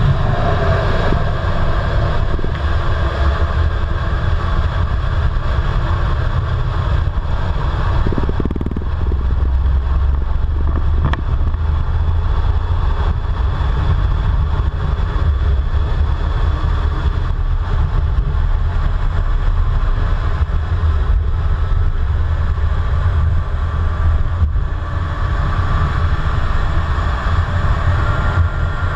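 Twin Eurojet EJ200 turbofans of a Eurofighter Typhoon at take-off power, heard from inside the cockpit: a loud, steady, deep rumble with a hiss over it through the take-off roll and lift-off.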